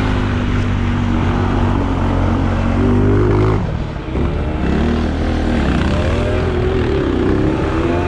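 Small go-kart engine running under load, its pitch and level dipping briefly about halfway through, then rising and falling repeatedly with the throttle.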